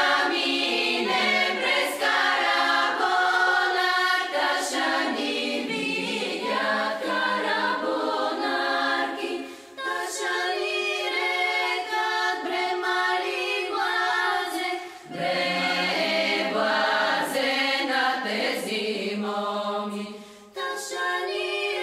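Background music: an a cappella choir singing in long held phrases, with short breaks about ten, fifteen and twenty seconds in.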